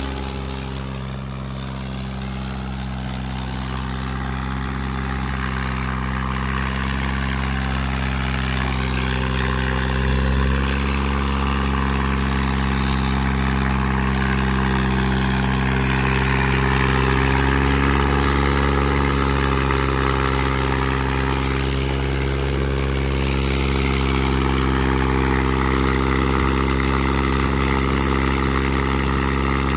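Diesel tractor engines of a Swaraj 855 and a New Holland 3630 running hard at steady revs, pulling against each other in a chained tug-of-war. A steady engine drone, with a slight rise in pitch about two-thirds of the way through.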